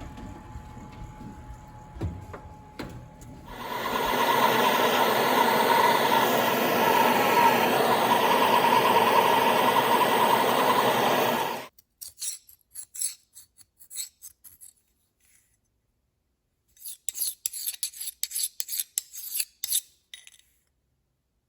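Steady abrasive rasping on knife steel for about eight seconds, stopping abruptly, followed by scattered light scraping clicks.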